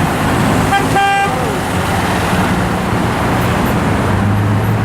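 A car horn toots twice about a second in, a brief beep and then a slightly longer one, over steady road traffic noise.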